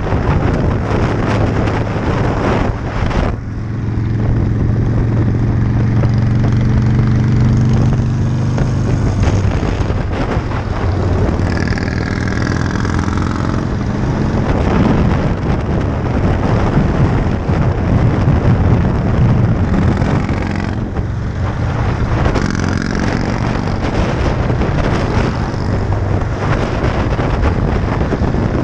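Motorcycles cruising at highway speed: engine running steadily under heavy wind noise on the microphone. The sound changes abruptly twice, at about three seconds and again past twenty.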